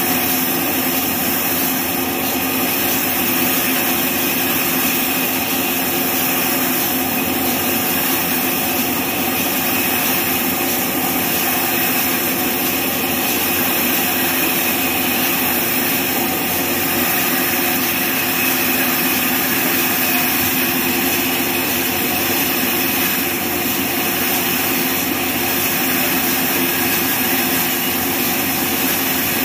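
Horizontal band sawmill cutting lengthwise through a neem log: the blade and its drive run in a steady drone with several held tones, under the hiss of the blade in the wood.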